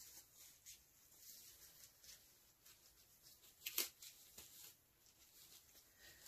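Near silence with faint rustles and light ticks, and one sharper click about four seconds in.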